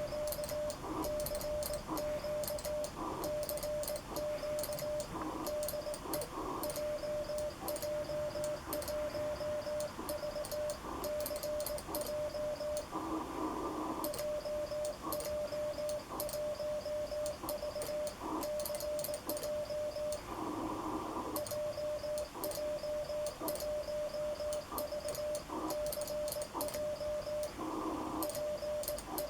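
A Morse code CQ call sent with an electronic keyer through an amateur radio transceiver: the sidetone beeps at one steady pitch in dots and dashes, with sharp clicks on the keying. The keying pauses briefly twice, about halfway through and again about two-thirds in.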